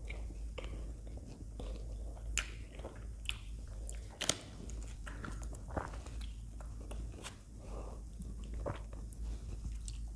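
Close-miked mouth sounds of someone eating ice cream with cookie pieces in it: chewing, lip smacks and many sharp, irregular clicks. The loudest comes about four seconds in.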